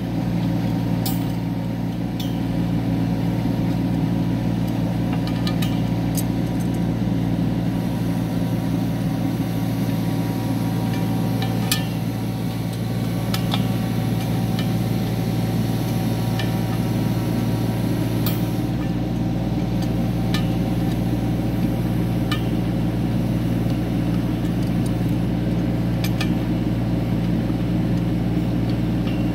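Kubota U25 mini excavator's diesel engine running steadily at idle, with occasional sharp metal clinks from wrenches on the bolts of a helical pier's coupling.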